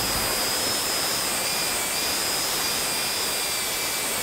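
Angle grinder running steadily against a metal plate, grinding down the plate's high point. A high, even motor whine rides over a harsh grinding hiss.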